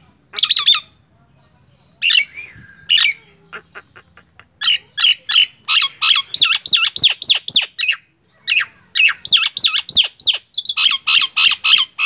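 Common myna singing: a few separate harsh calls, then from about five seconds in a fast run of repeated ringing, squawking notes, several a second, broken by one short pause.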